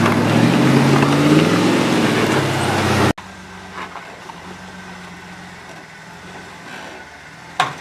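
Off-road Jeep engine revving up and down under load as it climbs rocks. After about three seconds it cuts off abruptly to a much quieter steady engine sound. A single sharp knock comes near the end.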